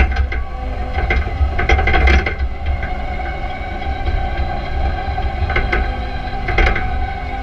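Clark forklift's engine running with a steady low rumble and a steady mid-pitched whine, with sharp mechanical clicks and knocks every second or so.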